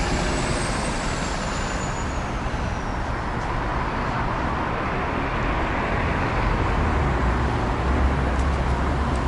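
Busy street traffic: buses and cars driving past with a steady low rumble. A faint high whine slowly falls and fades over the first three seconds.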